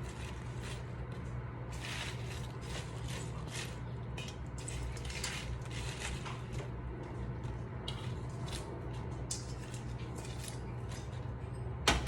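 Handfuls of washed spinach being dropped and pushed into a pan of simmering sauce: repeated short rustles and scrapes over a steady low hum, with a loud knock near the end.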